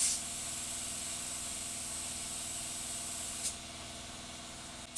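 Paint sprayer applying primer: a steady spray hiss over the sprayer's motor hum. The hiss eases about three and a half seconds in while the motor keeps running.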